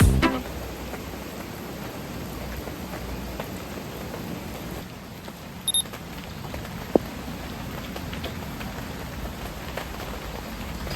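Steady rain falling, an even hiss of drops with the last of the music cutting off right at the start. A brief high beep sounds near the middle, followed by a single sharp tick.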